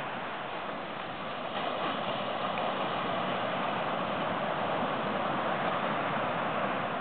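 Ocean surf washing onto a sandy beach: a steady hiss of breaking waves that swells slightly about a second and a half in.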